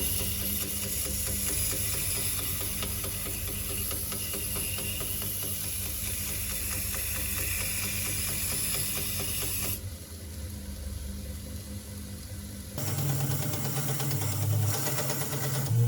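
Homemade belt grinder driven by a washing-machine universal motor, running steadily with a hum and a high hiss. About ten seconds in the sound drops off sharply, and about three seconds later a louder, lower hum starts up.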